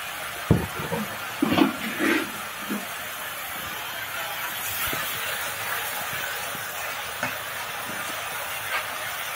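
Onions and spices sizzling in hot oil in an iron karai as the masala is fried down, a steady hiss. A metal spatula knocks and scrapes against the pan several times in the first few seconds.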